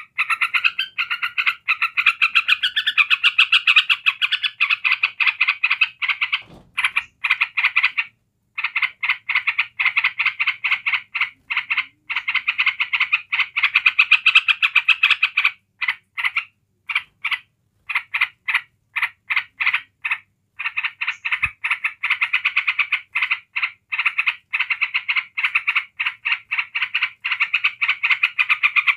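Yellow-vented bulbul (trucukan) giving its rapid rattling 'ngebren' chatter in long, near-unbroken bouts, with a pause of about two seconds a little after six seconds in. Keepers take this long chatter as the sign of a bird in full voice.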